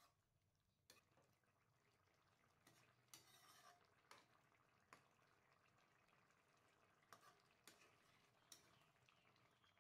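Very faint stirring of a thick coconut curry in a wok: a metal spoon scraping through it and giving several light clicks against the pan.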